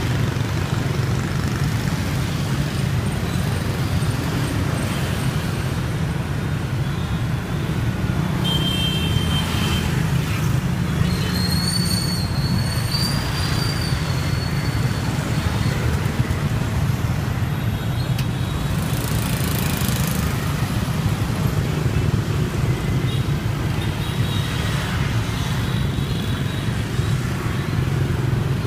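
Steady traffic on a busy street crowded with motorbikes and cars, a continuous low drone of engines and tyres. A thin high tone sounds for a few seconds around the middle.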